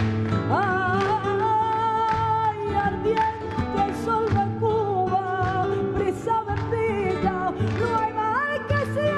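Flamenco music: a singer holds long, wavering notes over the accompaniment, the voice coming in about half a second in.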